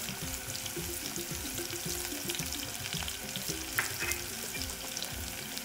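Chopped onion frying in hot sesame oil with tempered mustard, fenugreek and fennel seeds: a steady sizzle with scattered crackles and pops.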